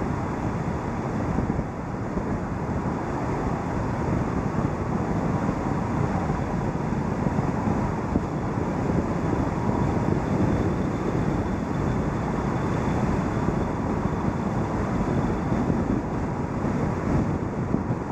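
Steady road noise of a car driving at speed: tyre noise on asphalt and rushing wind, even throughout with no distinct engine note.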